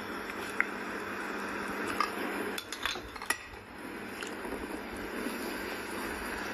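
A metal spatula clinking and scraping against a frying pan on a gas stove, with several sharp clinks scattered through a few seconds.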